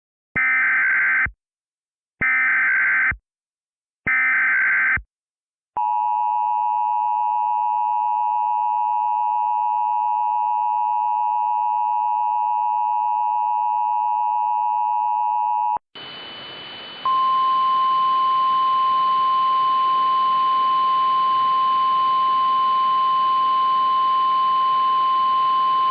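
Emergency Alert System tornado warning tones. First come three bursts of SAME header data, each about a second long and evenly spaced. Then the steady two-tone EAS attention signal runs for about ten seconds and cuts off. Next a hiss comes in, and about a second later a single steady warning alarm tone of the NOAA Weather Radio kind starts and stops near the end.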